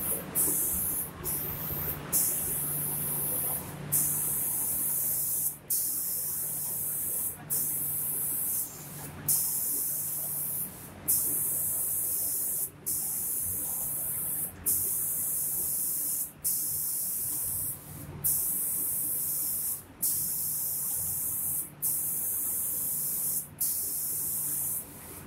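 Spray gun on an automatic cabinet-door painting machine hissing in repeated bursts of about a second and a half, cutting off briefly between them, over a steady low machine hum.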